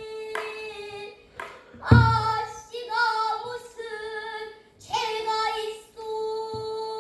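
A child's pansori singing voice, holding long notes with wavering ornaments and sliding bends between short phrases. About two seconds in, a sharp click and a low thump sound, typical of strokes on the buk barrel drum that accompanies pansori.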